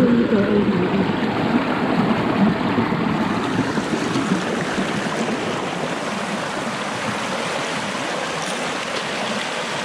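Mountain stream water splashing and rushing over rocks, churning close by at first, then a fuller, steadier rush of rapids from a few seconds in.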